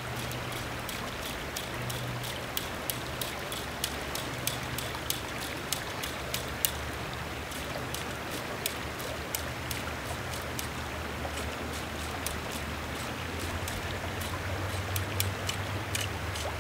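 Steady rush of river water, with a run of short, sharp ticks, one to three a second, as fly line is stripped in in quick short pulls.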